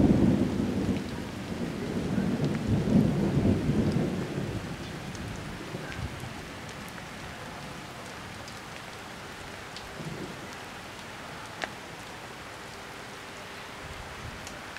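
Thunder rumbling for the first four seconds or so and then dying away, leaving steady rain with scattered drops ticking. There is one sharp click about two-thirds of the way through.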